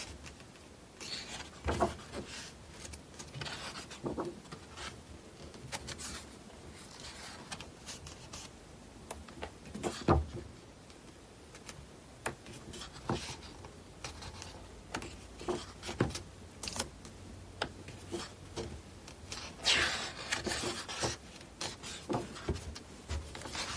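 Pages of a thick photo book being turned and handled: soft paper rubbing with scattered light taps, and a louder page swish about twenty seconds in.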